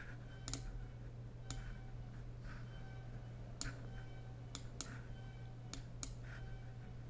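Sharp, faint clicks of a computer mouse, about nine scattered irregularly and coming closer together in the second half, over a steady low electrical hum.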